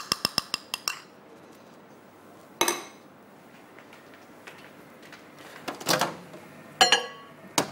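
Metal spoon clinking quickly against a small glass bowl of butter, about eight sharp clicks in the first second, with a single clink a couple of seconds later. Near the end come more knocks and clinks with a brief ringing as the glass bowl is handled at the microwave.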